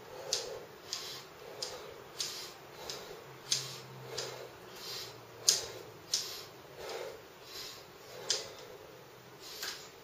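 A man breathing hard in quick, sharp puffs, about three breaths every two seconds, from the exertion of a bodyweight workout.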